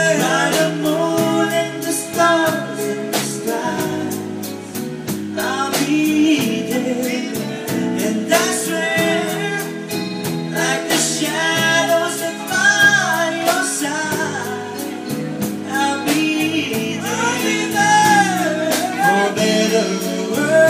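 Live band music with a singer: a slow ballad sung over keyboard backing, with a steady beat of light percussion ticks.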